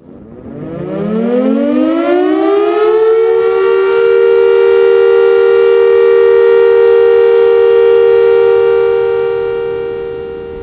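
A siren winding up from a low pitch over about three seconds, then holding a steady, loud two-note tone, fading away near the end.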